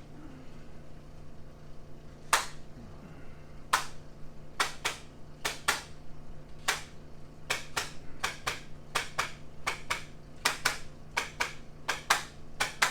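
A handheld chiropractic adjusting instrument firing: about twenty sharp, identical clicks, starting about two seconds in and coming closer together as it goes.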